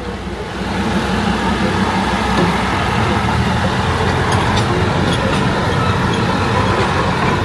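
Darjeeling toy train running: a steady engine and running noise that grows louder about a second in and then holds, with a few faint light ticks in the middle.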